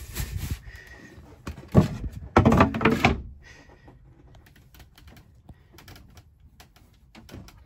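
Thumps and knocks as a compartment hatch lid is lifted off and set down, the loudest about two to three seconds in, followed by faint clicks and handling noises as the bronze seacock handle is turned shut.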